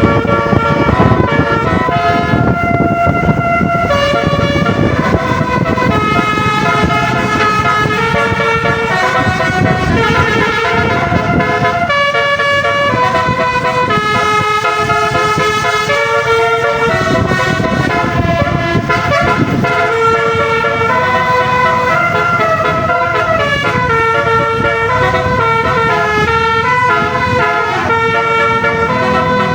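Indonesian bus 'telolet' multi-tone air horn playing a fast tune of short stepped notes, over a low rumble.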